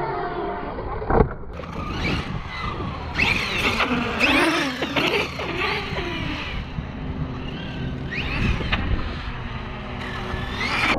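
Electric motor of a Tekno MT-410 RC truck whining as it revs up and down in repeated bursts, with one sharp knock about a second in.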